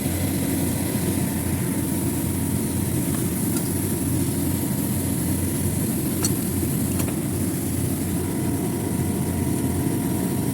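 Steady drone of running machinery, with a few faint light ticks.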